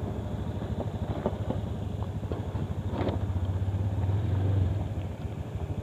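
Small motor scooter engine running at low speed with an even low pulse, a little louder for about a second near the middle, then easing off.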